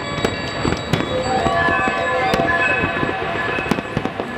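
Fireworks popping and bursting over a layer of held, ringing metallic tones at several pitches, played on a stainless steel replica of the Golden Gate Bridge used as an instrument.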